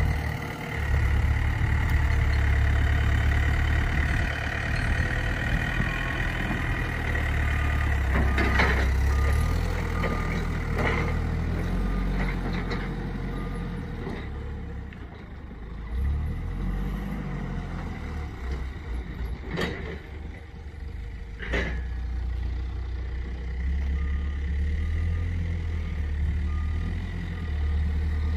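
A heavy vehicle's engine running steadily and changing pace, with a reversing alarm beeping in two stretches and a few sharp knocks, during loading of an apple truck.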